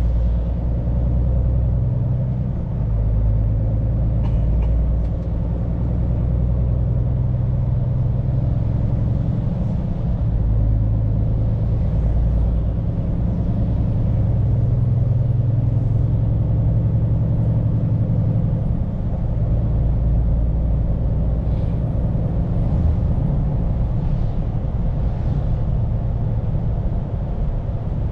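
Scania P410 truck's diesel engine running steadily while driving along, heard from inside the cab as a low, even drone with road noise.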